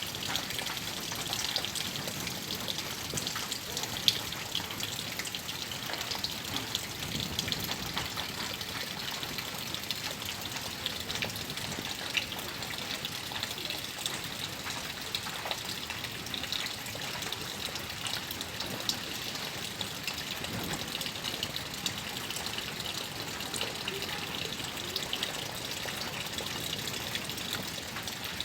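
Steady rain falling on a tin roof and onto pond water: a dense, even hiss full of small drop ticks, with one sharper tick about four seconds in.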